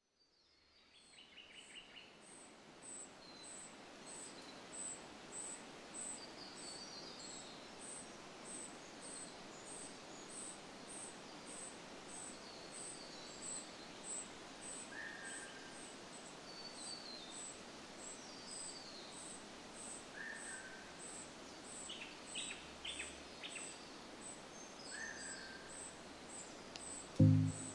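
Lakeside woodland ambience fading in: an insect chirping high and regularly, a little under twice a second, with scattered bird calls over a soft hiss. Music starts near the end.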